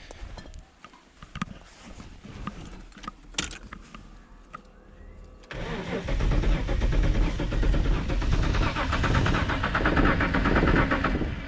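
A few light clicks and knocks, then about five and a half seconds in the Holden VL Commodore's starter motor cranks the engine over with a fast even pulsing for about six seconds without it catching: a no-start that the owner puts down to a fuel problem.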